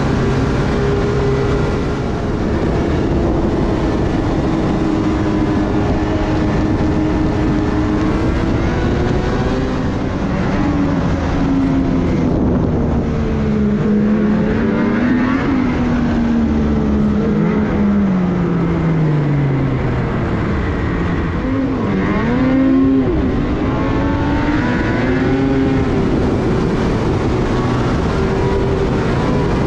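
Ski-Doo Renegade 850 snowmobile's two-stroke twin engine running under way, a new crate engine being broken in. Its pitch holds steady at first, falls gradually from about a third of the way in as the sled slows, then rises and dips again before settling.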